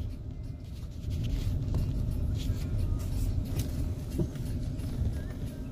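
Car driving: a steady low rumble of engine and road noise heard from inside the moving vehicle.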